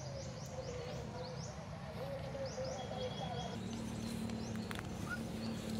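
Small birds chirping in quick runs of short, falling high notes over faint voices. A little past halfway a low, steady hum sets in.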